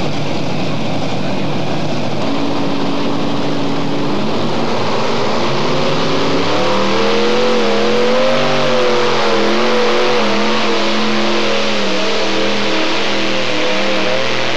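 Twin-engine modified pulling tractor running at full throttle as it pulls the sled down the track. From about six seconds in, the engine note stands out as a pitch that wavers up and down.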